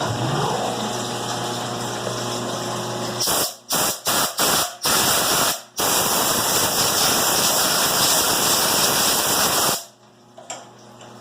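Compressed-air blow gun hissing in several short bursts, then one long steady blast of about four seconds that cuts off sharply, typical of blowing chips off a freshly milled part.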